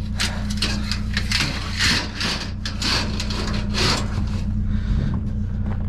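Scrap being shoved and stacked into a full truck bed: a quick string of scraping, rustling and knocking noises for about four seconds, easing off near the end, over a steady low hum.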